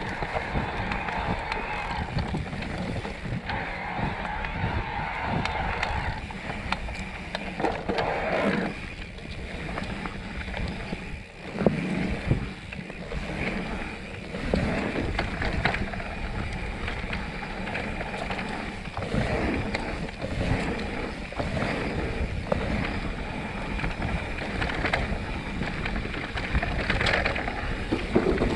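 Mountain bike ridden along a dirt forest trail: tyres rolling over the ground with a steady rumble, the bike rattling and knocking over bumps, and wind buffeting the microphone.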